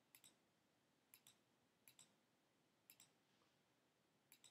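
Faint computer mouse clicks: five quick click pairs, about a second apart.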